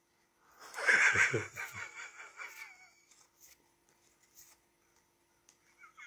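A woman laughing: a short burst about a second in that trails off over the next two seconds. A faint steady hum sits underneath.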